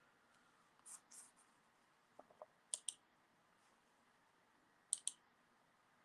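Near silence: room tone with a few faint short clicks, in pairs roughly two seconds apart.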